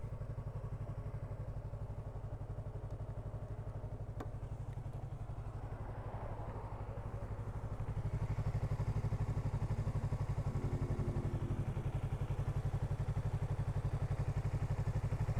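Yamaha R3's parallel-twin engine running at low revs, a steady even pulse that grows louder about eight seconds in. The rider is listening for an odd fan-like whirring he suspects in the engine since an oil and coolant change.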